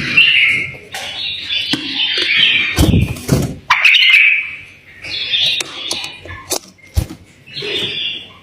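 Pet bulbul singing in short, loud phrases, with a few sharp knocks and clicks between them.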